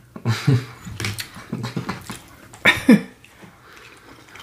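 Close-miked chewing and mouth sounds of people eating, with light fork clicks on a plate and a brief murmur falling in pitch just before three seconds in.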